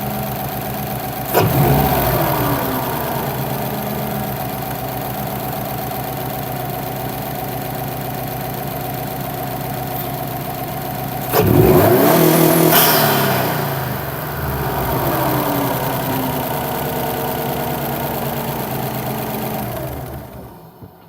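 Subaru WRX's turbocharged flat-four, fitted with a Cobb turbo inlet, idling and revved twice: a quick blip about a second in and a longer rev around eleven seconds, each falling back to idle. The engine cuts off near the end.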